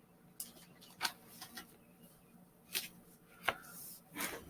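Thin Bible pages being turned by hand: a handful of faint, short paper flicks and rustles spread over a few seconds as the pages are leafed through to find a passage.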